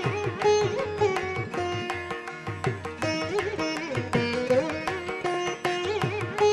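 Background Indian classical-style instrumental music: a plucked string instrument plays a melody with bending, gliding notes over hand-drum strokes.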